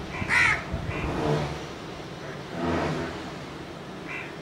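Motor vehicle engine accelerating, swelling about three seconds in, over a steady background of traffic noise, with a short high-pitched call about half a second in.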